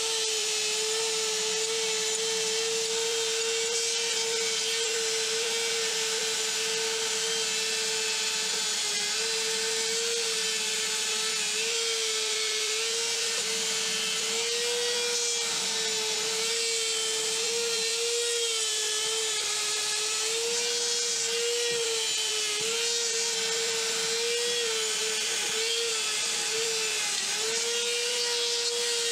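Handheld rotary tool with a brass wire wheel running against steel pliers. Its motor whines steadily, the pitch dipping briefly again and again as the brush is pressed onto the metal, over a steady scrubbing hiss.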